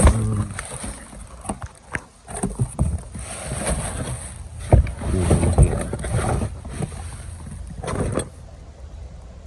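Cardboard boxes and plastic-wrapped parts being handled: rustling and scraping with scattered knocks, busiest in the middle. A low hum cuts off right at the start.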